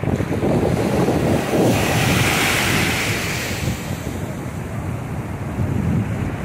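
Ocean surf washing in over the shallows, with wind buffeting the microphone. A hiss of breaking water swells about two seconds in and fades away by about four seconds.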